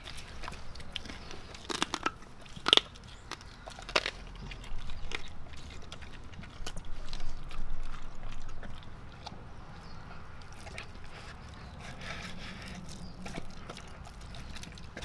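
Red Doberman eating raw ground beef and liver from a stainless steel bowl: wet, irregular chewing, biting and lapping, with a few sharp clicks in the first few seconds.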